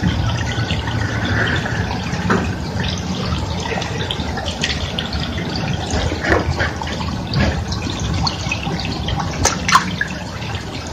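Water running and splashing, with scattered drips and small sharp splashes over a steady wash, the sharpest pair a little before the end.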